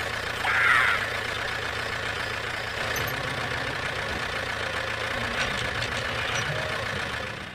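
Mini tractor engine idling steadily with an even low chug. There is a brief, loud, scratchy high sound about half a second in.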